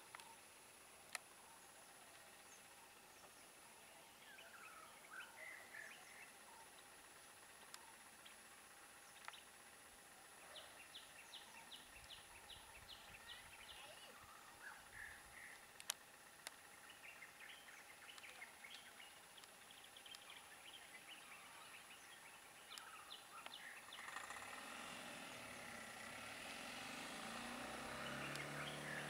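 Quiet forest ambience: scattered bird chirps and a thin steady high tone, with a few sharp clicks. In the last few seconds a vehicle engine grows louder.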